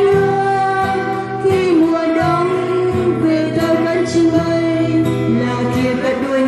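A woman singing to an acoustic guitar, holding long sustained notes over strummed chords.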